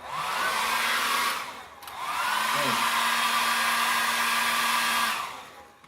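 Felix Norma series 1600 W hair dryer switched on for test runs after repair: its fan motor spins up into a steady rush of blowing air, runs briefly and dies away, then starts again and runs about three seconds before winding down. The dryer, which had not worked at all, now runs.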